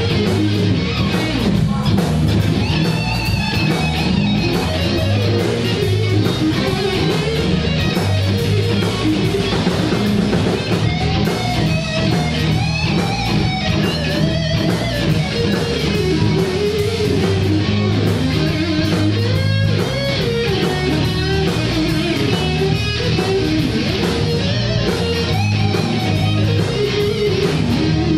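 Live blues band playing an instrumental passage: two electric guitars, electric bass and drum kit. A lead guitar line with bent notes runs over the bass and drums.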